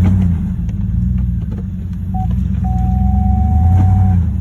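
Old Chevrolet truck's engine running hard, its revs swelling and easing and loudest near the end. A steady high beep-like tone sounds briefly and then holds for a second or two in the middle.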